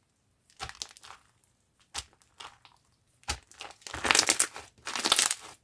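Slime being squished and pressed by hand: scattered short clicks and pops, then two longer, louder stretches of dense crackling in the second half.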